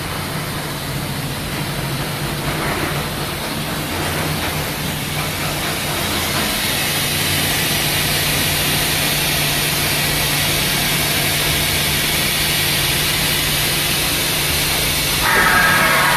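Okuma MX-45VA vertical machining center running: a steady machine hum with hiss that slowly grows louder. Music comes in near the end.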